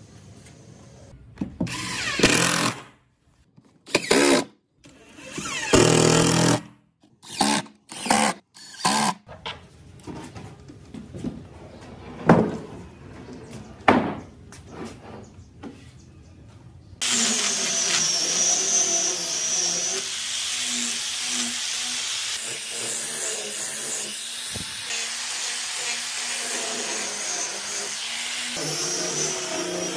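A series of short knocks and scrapes of wood being handled, then, from about halfway, an angle grinder with a sanding disc starts and runs steadily against carved wood, with a high whine over the grinding.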